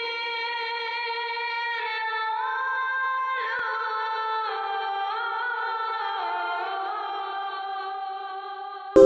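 A single high voice singing a slow melody alone in long held notes, moving in steps from one note to the next. Just before the end, a much louder, fuller vocal music track cuts in abruptly.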